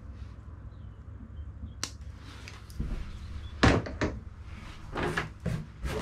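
A sharp click about two seconds in, then a run of knocks and bumps of handling on the grooming table, the loudest a little past the middle, over a low steady hum.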